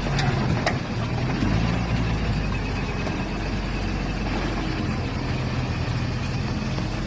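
Engine of a Toyota rock crawler running steadily at low revs, with two sharp clicks in the first second.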